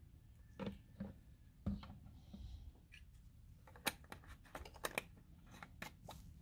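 Faint clicks and taps of plastic bottles being handled: a few separate taps in the first two seconds, then a quick run of clicks about four seconds in as a screw cap is worked onto a plastic bottle of coolant mix.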